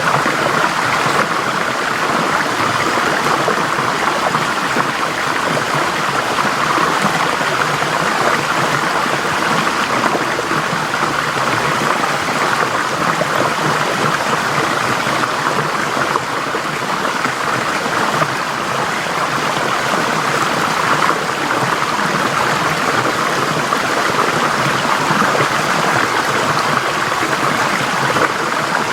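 Forest stream flowing steadily over rocks, a continuous rushing and trickling of water.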